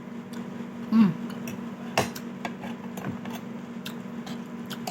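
A metal spoon clinks and scrapes against a bowl of chicken rice porridge soup in a few sharp taps, the strongest about two seconds in. A short falling vocal murmur comes about a second in, over a steady low hum.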